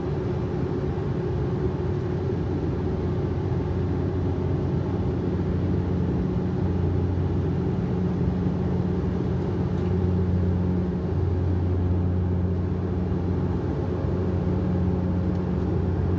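Cabin noise of a turboprop airliner in flight, heard beside the propeller: a steady low hum from the propellers over a broad rumble of engine and air noise.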